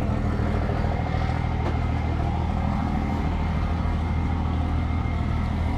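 A vehicle engine idling steadily, a low even drone with no change in speed.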